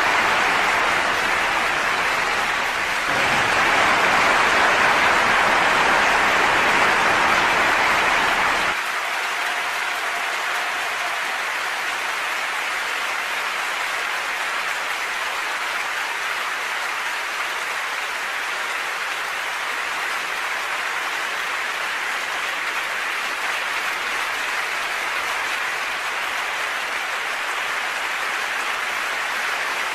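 Audience applauding, a steady crowd of clapping hands. About nine seconds in the sound turns abruptly thinner and quieter, then goes on evenly.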